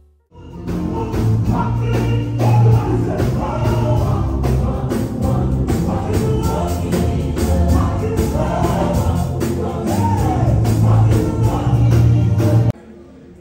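Church gospel band and group of singers performing live: several voices singing together over keyboard, bass guitar and a steady beat. The music cuts off suddenly near the end.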